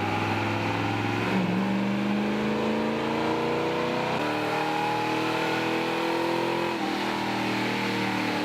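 Car engine running under load, its pitch climbing slowly and jumping suddenly three times.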